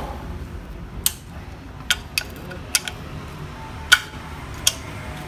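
Irregular sharp metallic clicks and clinks, about six in all, from a tube socket spanner working the valve cover bolts of a Daewoo Lanos E-TEC engine.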